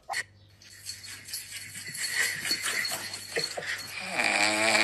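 Metal jingling, like a pet's collar bell or tags shaking, over a steady low hum. Near the end a drawn-out pitched sound comes in.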